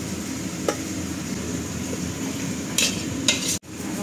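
Metal utensils scooping and clinking against a wok and a steel serving tray, with a few short knocks over a steady kitchen hiss. The sound cuts off abruptly shortly before the end.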